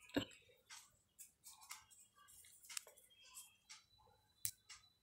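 Faint, irregular little clicks and scratches of a metal crochet hook working wool yarn by hand, with a sharper click near the end.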